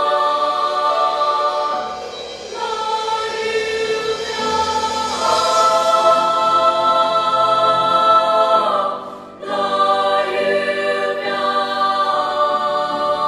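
Girls' choir singing long held chords in several parts, swelling to its loudest in the middle, with a brief break about nine seconds in before the voices come back.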